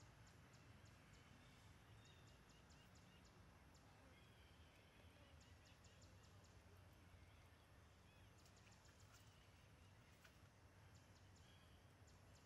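Near silence: faint outdoor ambience, with short runs of faint high ticks and a few faint chirps.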